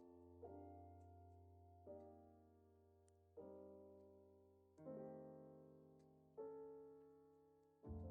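Soft, slow piano music: a chord is struck about every second and a half, and each is left to ring and fade before the next.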